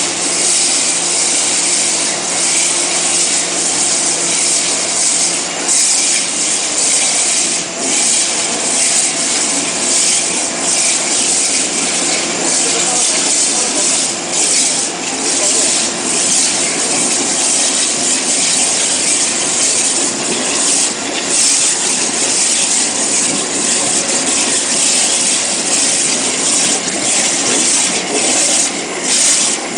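CNC waterjet cutting machine's high-pressure jet cutting, a loud steady hiss with a faint low hum beneath it.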